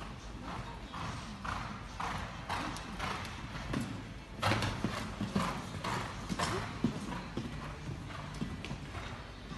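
A show-jumping horse's hooves beating on sand footing at a canter, about two strides a second, with a heavier thud about four and a half seconds in as it lands after clearing a fence.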